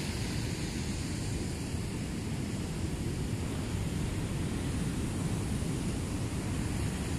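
Steady rush of ocean surf mixed with wind on the microphone, even throughout with no distinct events.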